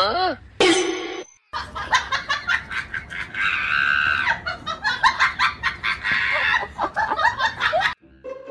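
Tabby cat vocalizing: a meow that rises and falls, then a long run of short, rapid calls with one longer, higher call in the middle. The calls stop suddenly near the end.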